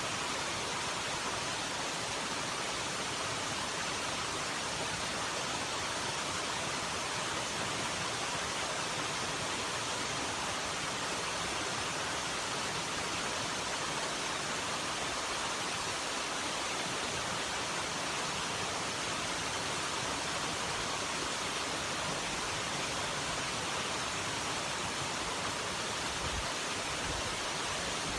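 Steady, even rushing noise that holds the same level throughout.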